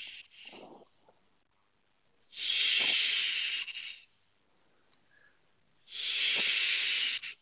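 Vaper's breath hissing through vapour close to the microphone: a brief quiet puff, then two long hissing puffs of about a second and a half each, about two seconds in and near the end.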